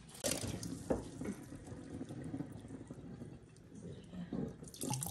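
Kitchen tap water running into a stainless steel sink and over chicken in a mesh strainer, louder near the end. A couple of sharp knocks come in the first second.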